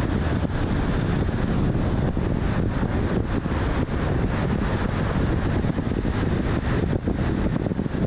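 Steady wind and road noise from a car driving at highway speed, with wind buffeting the microphone.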